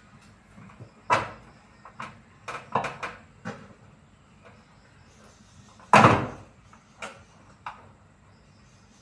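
A series of separate knocks and clunks from a front-loading washing machine being worked on, about nine in all, the loudest and longest about six seconds in.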